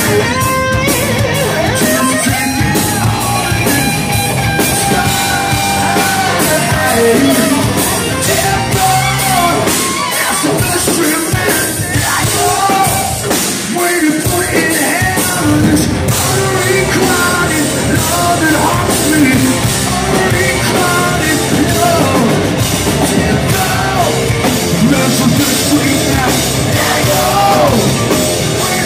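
Live hard rock band playing loudly: distorted electric guitars and a drum kit, with a singer shouting and singing over them.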